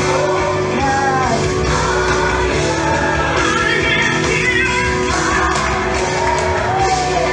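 Gospel worship music: a band playing with voices singing over it, steady and full throughout.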